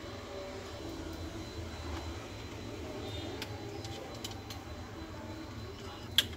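Steady low background hum, with a few small sharp clicks from hard laptop parts being handled and fitted, the loudest click just before the end.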